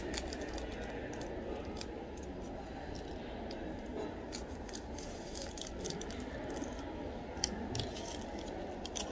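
Paper sugar sachet being torn open and crinkled over a coffee mug, with small scattered clicks and taps and one sharper tap about seven seconds in, over the steady hum and murmur of a café.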